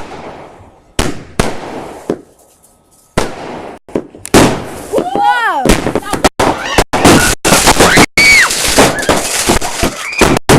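Fireworks going off: a few separate sharp bangs, then from about four seconds in a dense, rapid run of bangs and crackles as the firework blows up all at once.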